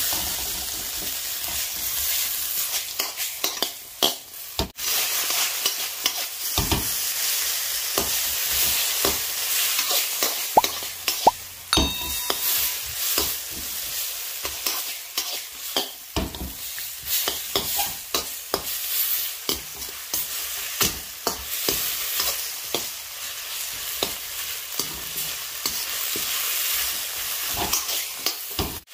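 Shrimp and broccoli sizzling in a hot wok, stirred and tossed with a perforated metal skimmer that scrapes and knocks against the wok in frequent short clicks. About twelve seconds in comes one brief ringing clink of metal on metal.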